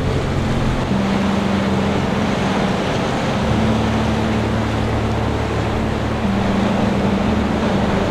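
Ocean surf washing steadily over a rocky shore platform, with soft background music of sustained low chords that shift every few seconds.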